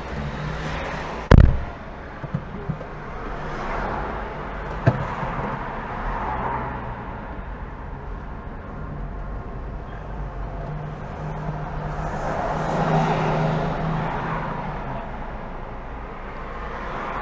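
Inside a Hyundai car: the passenger door slams shut about a second in, the loudest sound. Then a few small clicks, and the engine runs steadily as the car creeps forward in traffic, swelling a little around two-thirds of the way through.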